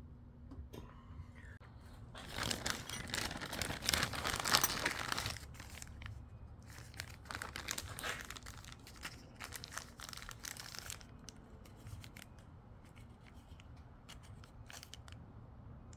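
Thin plastic packaging crinkling and rustling as a clear zip-lock bag of accessories is opened and handled. The densest, loudest crinkling starts about two seconds in and lasts about three seconds, followed by shorter bursts of rustling and a few light clicks.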